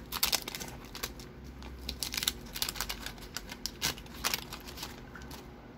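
Paper wrapper of a 1992-93 O-Pee-Chee hockey card pack being torn open and handled: irregular crinkling and crackling, thinning out near the end as the cards come out.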